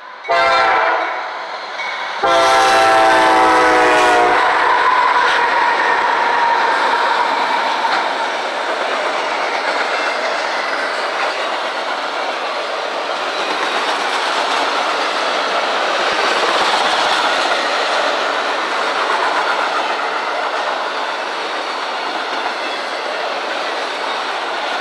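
Horn of a CSX freight's lead GE diesel locomotive sounding two blasts, a short one and then a longer one of about two seconds, for the grade crossing. After the horn come the locomotives and the long string of autorack cars rolling past, a steady rumble with wheel clatter over the rail joints.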